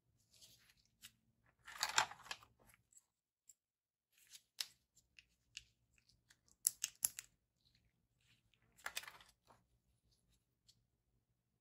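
Electronics kit packaging and parts being handled: two rustling, crinkling bursts, one about two seconds in and one near the end, with scattered sharp clicks and taps between them.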